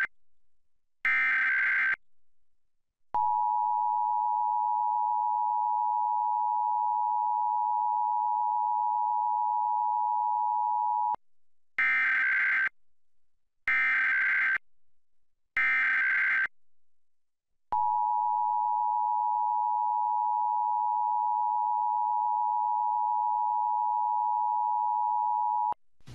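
Emergency Alert System tones: short bursts of warbling digital data (the SAME header), then the two-tone EAS attention signal held steady for about eight seconds. Three more data bursts about two seconds apart follow, then the attention signal again for about eight seconds.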